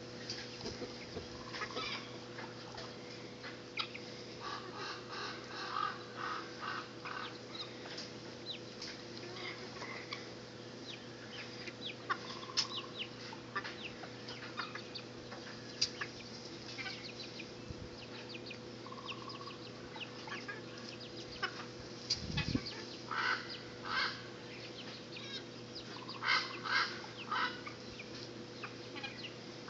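Backyard chickens and guinea fowl clucking and calling, with a run of loud, harsh, repeated calls near the end.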